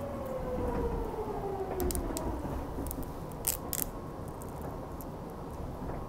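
Fukuoka City Subway train running, heard from inside the car: a steady rumble of wheels on rail under a motor whine that glides down in pitch over the first two seconds as the train slows, with a few sharp clicks about two and three and a half seconds in.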